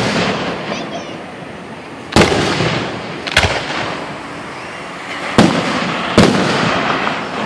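Aerial fireworks shells bursting: four sharp, echoing bangs, about two seconds in, a second later, about five and a half seconds in, and under a second after that.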